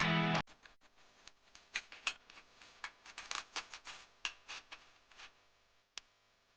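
Guitar music cuts off about half a second in, followed by a run of irregular light clicks and taps.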